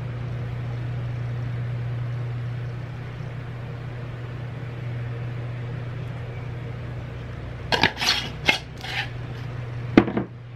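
A steady low hum, with a few knocks and clatters of plastic spice containers being handled on a kitchen countertop near the end, the last a sharp click.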